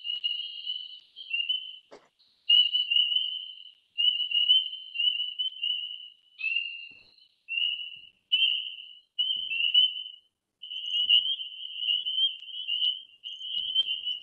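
Chorus of spring peepers: many high, short peeps repeating one after another, growing denser and overlapping near the end.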